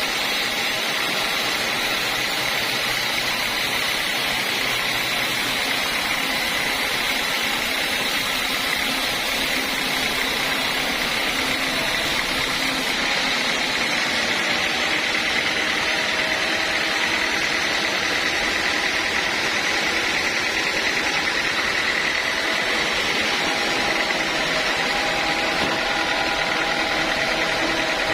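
Band sawmill running steadily while sawing a teak log, a continuous mechanical noise with a steady high-pitched tone over it.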